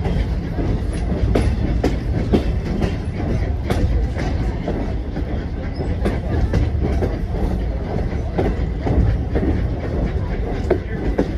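A steam-hauled passenger coach rolling along the track: a steady low rumble, with the wheels clicking over the rails at an uneven rhythm, heard from an open coach window.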